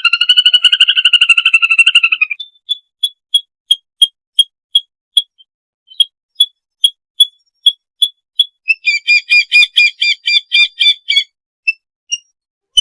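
Lesser whistling ducks calling to the flock with high whistles: a fast twittering run of notes, then single short whistles at about two to three a second, then another fast run about nine seconds in.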